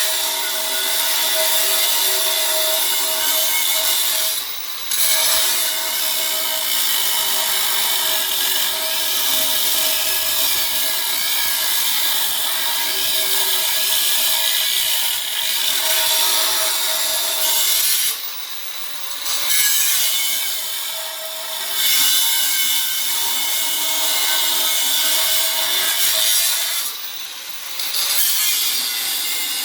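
Power saw cutting through the thick steel wall of a safe: a steady high-pitched whine and grinding hiss, briefly easing off and picking up again three times as the blade is lifted and set back into the cut.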